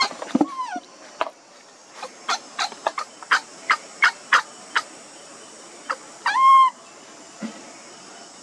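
Animal calls: a quick run of short, sharp calls, about three a second, then one longer pitched call about two-thirds of the way through.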